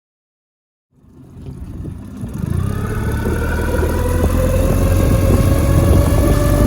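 Suzuki 9.9 hp outboard motor running. It comes in about a second in, builds up quickly, then holds steady with a low rumble and a whine that slowly rises in pitch. This is the motor the owner says misfires on Techron Marine-treated fuel.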